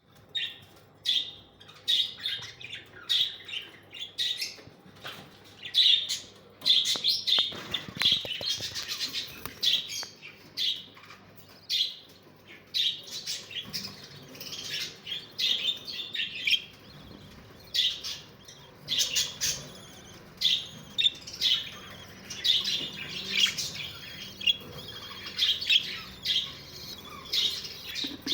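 Small aviary birds chirping continuously, many short high chirps overlapping with a few harsher squawks.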